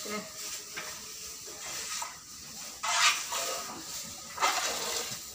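Milk squirting from a cow's teats as it is milked by hand: a short hissing spurt with each squeeze. The loudest spurts come about three seconds in and again about a second and a half later.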